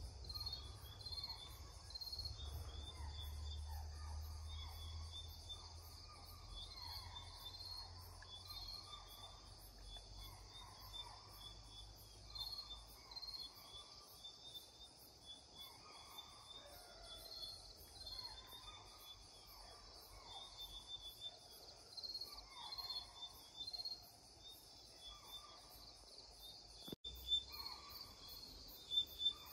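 Distant spotted deer (chital) alarm calls, short falling calls repeated at irregular intervals, over a steady chorus of crickets. The chital are calling in alarm, a sign that could mean a tiger is moving in that area.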